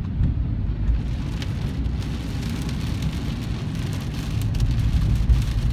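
Heavy rain pattering on a car's roof and windscreen, heard from inside the cabin, with scattered sharp drop ticks over a steady low rumble of the moving car on the wet road.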